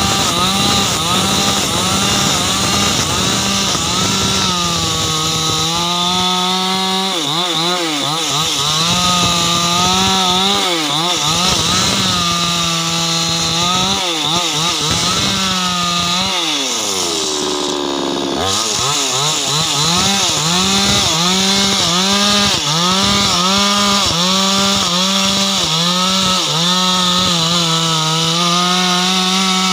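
Ogawa two-stroke chainsaw ripping hardwood lengthwise, its engine pitch wavering up and down as the chain bogs and recovers in the cut. About sixteen seconds in, the revs fall away briefly, then climb back up as cutting resumes.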